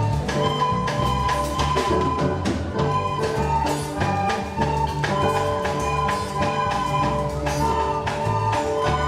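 Upbeat instrumental music with a steady beat, percussion and bass under sustained melody notes.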